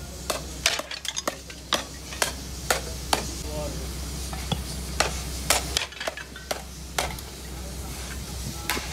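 Sharp metallic knocks and clinks, roughly two a second, from broken cast-iron brake drum scrap being struck and handled, over a steady low hum.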